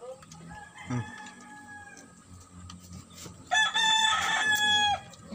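A rooster crowing once about three and a half seconds in: one loud call held on a single pitch for about a second and a half, rising at its start and dropping off at the end. A fainter call carries on for the first couple of seconds before it.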